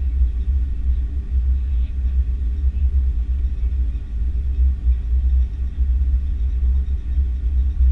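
Airbus A330-300 airliner, steady low rumble of engine and airframe noise with no change in level.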